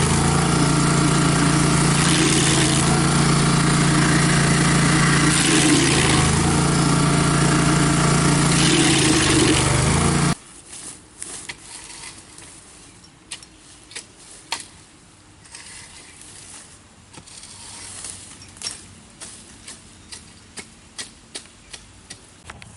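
Barreto stump grinder's gasoline engine running at full throttle, with a louder rasping swell about every three seconds as the cutter wheel works the stump, then shut off suddenly about ten seconds in. Faint scattered clicks and taps follow.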